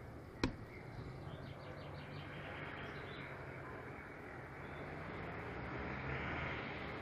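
Distant freight train of tank wagons approaching, heard as a low, steady locomotive engine hum that slowly grows louder. A bird chirps several times about one and a half to three seconds in.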